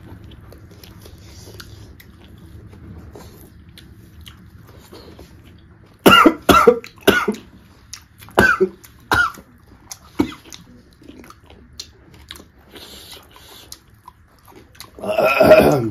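Quiet chewing and eating by hand, then a run of about six sharp coughs from about six seconds in, and one longer loud cough near the end.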